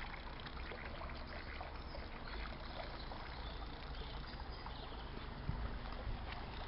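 Outdoor canal-side ambience: a steady low rumble and hiss with small scattered ticks and trickling water sounds, no single source standing out.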